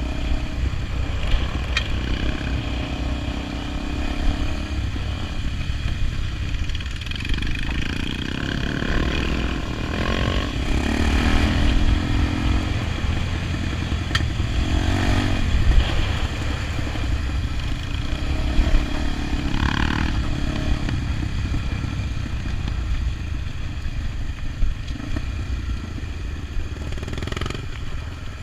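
Honda XR 250 Tornado's single-cylinder engine running with a steady low rumble, its note shifting briefly a few times.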